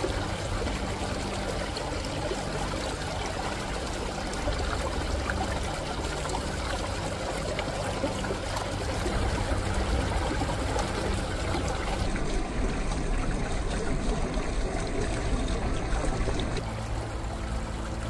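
Water trickling and gurgling down a small, partially frozen stream, a steady, even rush with no breaks.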